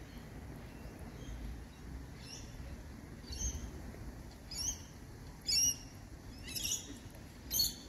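Red-rumped parrots giving short, high chirping calls about once a second, starting about two seconds in and growing louder, over a low background rumble.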